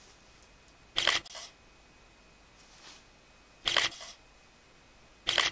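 Camera shutter firing three times, about two seconds apart, each a short sharp click-clack, as pictures are taken.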